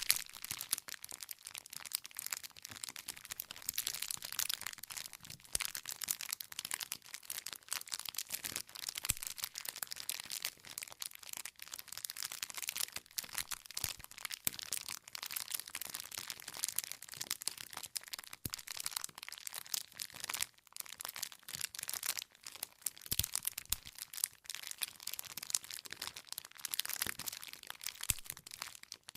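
Wood campfire crackling and popping: a dense, irregular run of small snaps as the burning logs split.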